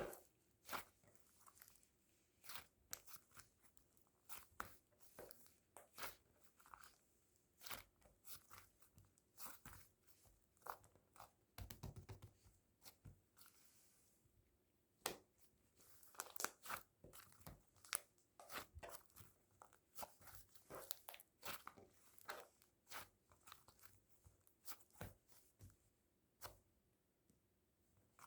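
Close handling noises: irregular light taps, clicks and crinkles, like paper and small objects being handled, denser around the middle.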